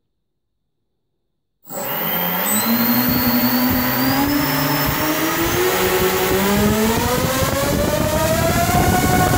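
Brushless quadcopter motor spinning a 6040 propeller on a test stand, starting about two seconds in. Its whine rises steadily in pitch over the rush of the prop as the throttle is turned up toward peak power, then levels off near the end.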